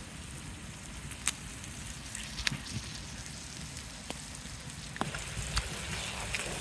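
Duck breasts frying on low heat in an oiled pan over campfire coals, the fat rendering slowly: a quiet steady sizzle with a few sharp pops and crackles.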